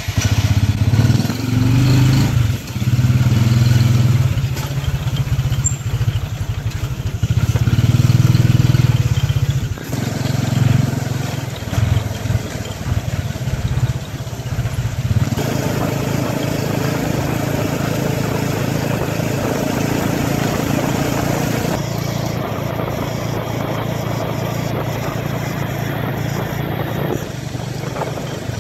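Motorcycle engine pulling a tuk-tuk carriage, heard from the carriage: it revs in several swells over the first ten seconds as it pulls away, then runs steadily at road speed with tyre and wind noise.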